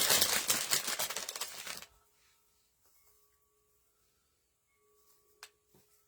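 Moss and nest material rustling as they are handled and pressed onto a nest, stopping after about two seconds. Then faint, drawn-out ringing tones of wind chimes come and go, with one sharp tap a little after the middle.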